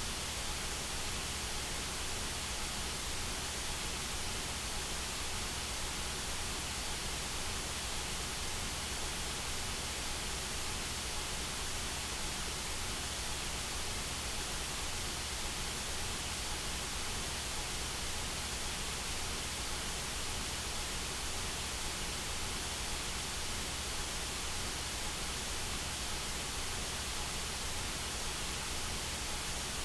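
Synthetic white noise: an even, steady hiss across all pitches that does not change, of the kind played to ease tinnitus.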